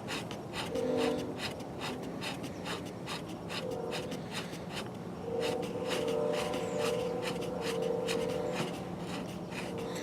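Hands unscrewing and working a threaded part off the trimming head of a case trim and prep center, giving irregular scraping, rubbing and clicking handling noise. A steady droning tone comes and goes behind it, longest in the second half.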